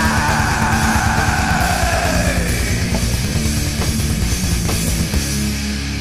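Death/thrash metal band playing: distorted electric guitars over dense drumming, with a lead note sliding down in pitch over the first two or three seconds. About five seconds in, the texture changes to held low chords.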